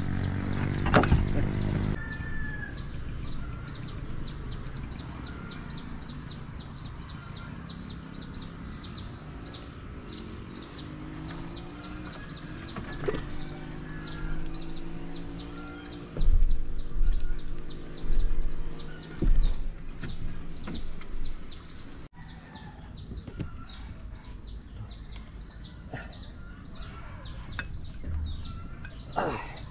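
A bird repeating a short high chirp about three times a second, steadily, over outdoor background noise. A few heavy low thumps come through over the middle of the stretch and are the loudest sounds.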